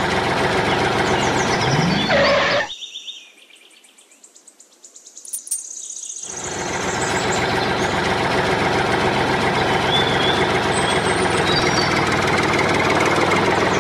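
Tractor engine running steadily at idle. A few seconds in it drops out for about three and a half seconds, then fades back in and runs on steadily.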